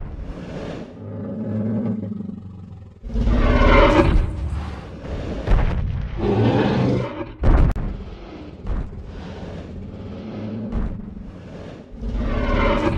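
Dinosaur roar sound effects: three long roars a few seconds apart, with a sharp thump about seven and a half seconds in.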